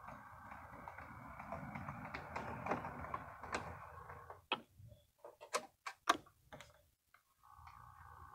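HO scale model diesel locomotive's electric motor running with a steady hum and whine, stopping about four and a half seconds in. A run of sharp clicks follows, then the motor starts up again near the end.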